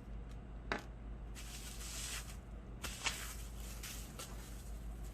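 Bubble wrap rustling and crinkling as a wrapped part is handled and unwrapped, with a sharp click about three-quarters of a second in and another about three seconds in.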